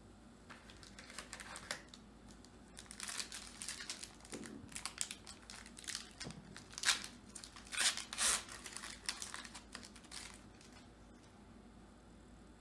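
Plastic trading-card pack wrapper crinkling and tearing as it is opened by hand, in irregular bursts of crackling, loudest past the middle and dying away near the end.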